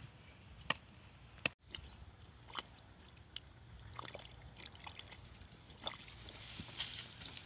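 Wet mud and water being scooped by hand out of a hole dug in soil: scattered wet scrapes and clicks, growing busier near the end.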